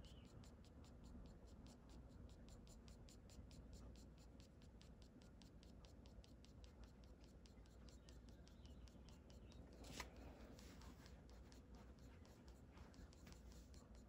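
Faint, quick scratching of a graphite pencil flicking short shading strokes across drawing paper, about five strokes a second, with one sharper tap about ten seconds in.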